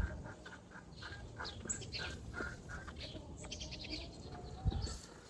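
Faint bird chirps and calls scattered throughout, with one low thump near the end.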